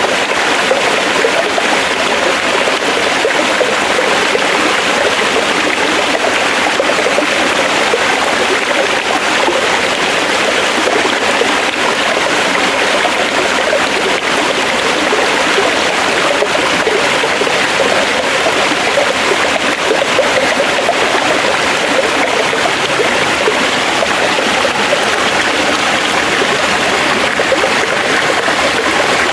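Forest stream running steadily over rocks, a continuous rushing and babbling of water.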